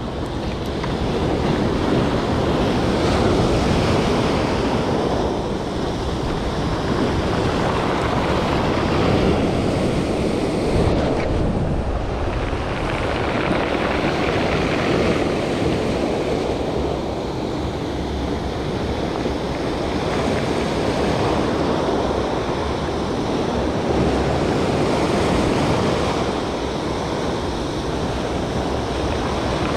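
Sea surf washing over a rocky shore, a continuous rush that swells and eases every few seconds, with wind buffeting the microphone.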